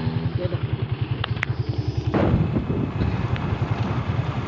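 Motorcycle engine running at a steady speed with a rapid low pulsing, mixed with road and wind noise. A surge of broader noise comes about two seconds in.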